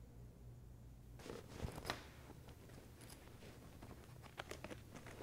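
Faint pen scratching on a spiral notepad's paper, quick scribbling and writing strokes starting about a second in, with two sharper taps just before two seconds.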